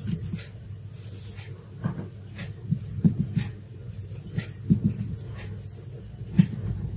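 Felt-tip marker writing on a whiteboard: short irregular strokes and taps as an equation is written out.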